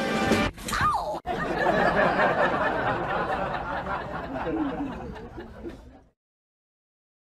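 A kitten's short falling mew about a second in, then people snickering and chuckling for several seconds, fading out into silence.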